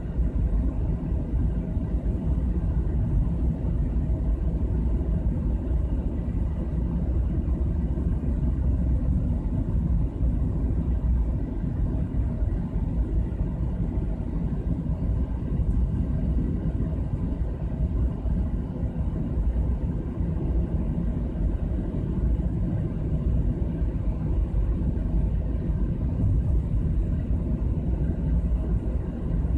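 Car driving through a road tunnel, heard from inside the cabin: a steady low rumble of tyre and engine noise that holds even throughout.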